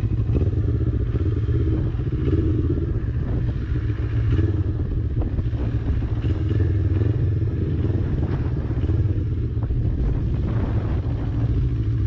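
CFMoto 400NK's parallel-twin engine running steadily while the motorcycle is ridden along a winding road, with a steady low rumble of wind on the microphone.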